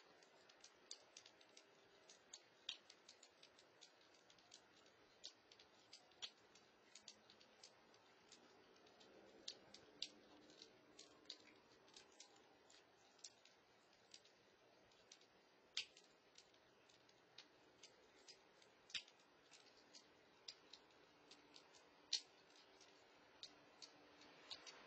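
Near silence broken by sharp, irregular clicks, several a second, a few of them much louder than the rest.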